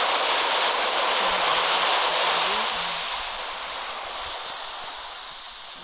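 Recorded sea-wave sound played back from a laptop: a wash of surf that is loud at first and slowly fades away.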